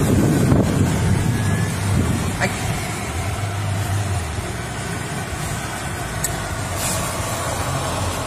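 Steady low rumble inside a car's cabin: engine and road noise as the car drives, with a couple of brief faint ticks.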